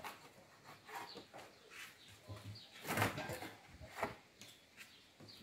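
Kitchen knife cutting the wings off a raw chicken on a wooden cutting board: a few scattered knocks and cuts, the loudest about three seconds in and another about a second later.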